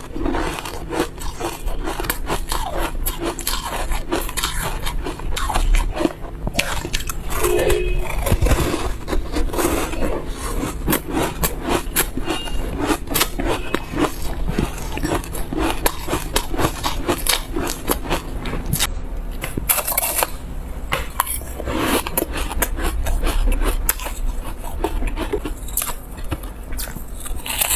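Close-miked biting and chewing of refrozen ice blocks coated in buckwheat powder: a dense, continuous run of crisp, crackling crunches.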